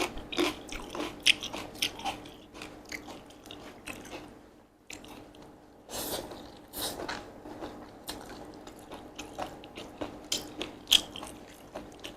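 Close-miked eating: chewing and crunching mouthfuls of Korean japchae glass noodles with crisp vegetables, a dense run of sharp wet mouth clicks and crackles, briefly easing off about five seconds in.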